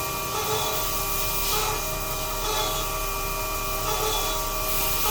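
CNC machine cutting a copper part: a steady mechanical whine with hiss, pulsing regularly about once a second.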